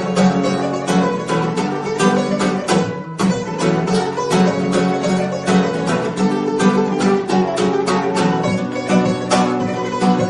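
Background music of plucked strings, a guitar-like instrument picking quick, even notes.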